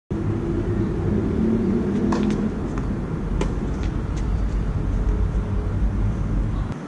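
Steady low outdoor rumble with sharp pops of a tennis ball struck by rackets and bouncing on a hard court, the loudest about two seconds in and again a little after three seconds.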